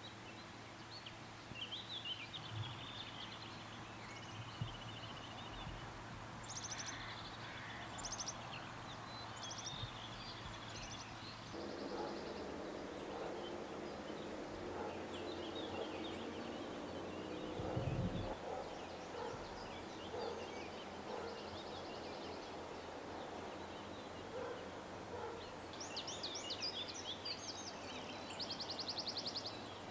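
Songbirds singing, with short chirps and rapid trills over steady outdoor ambience; the birdsong is busiest near the end. A low thump about eighteen seconds in is the loudest moment.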